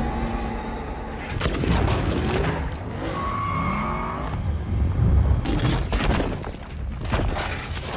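Film sound effects of a street battle: explosions and crashing, shattering debris over a heavy low rumble, with several loud crashes in a row. A high steady whine sounds for about a second near the middle.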